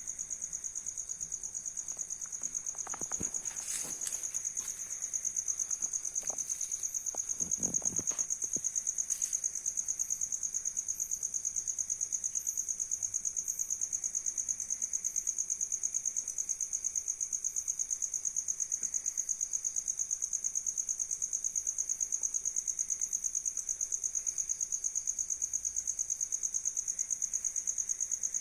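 Steady high-pitched cricket-like insect trilling, pulsing rapidly and evenly throughout, with a few brief knocks and rustles between about three and nine seconds in.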